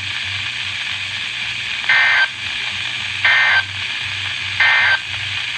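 Weather radio static with three short, shrill digital data bursts a little over a second apart. These are the EAS/SAME end-of-message code that closes the severe thunderstorm warning broadcast.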